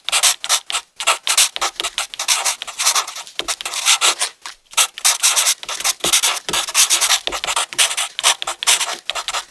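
Pen and marker tips scratching on paper in quick, irregular short strokes, several a second, as letters are outlined and then coloured in.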